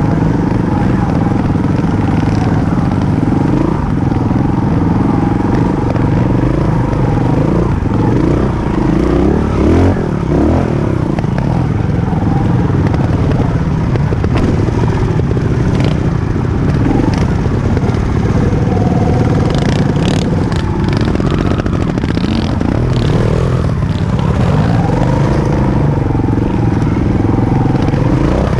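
Off-road motorcycle engine running with revs rising and falling as it climbs a rocky dirt trail. A run of knocks and clatter from the bike over stones comes about two-thirds of the way in.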